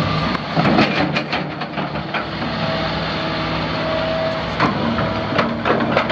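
Kobelco SK210LC excavator's Mitsubishi six-cylinder diesel engine running steadily. There is a string of sharp knocks in the first couple of seconds and more near the end, and a steady higher whine comes in about two and a half seconds in.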